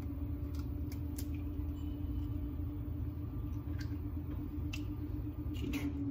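Steady low hum of a running appliance, with a few faint clicks from an egg being cracked and its shell halves handled.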